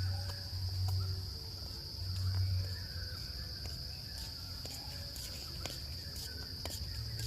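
Steady high-pitched buzzing of insects, crickets or cicadas, with a low hum that comes and goes and scattered small clicks.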